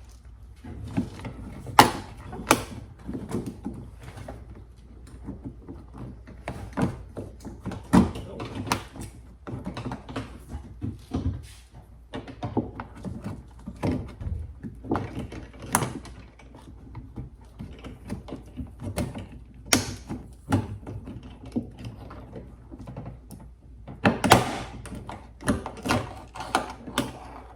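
Broken outer door handle of a Fiat 500 being wiggled and worked out of the door, with its lever rod being unclipped: a long run of irregular clicks, knocks and rattles, with a few sharper knocks spread through it.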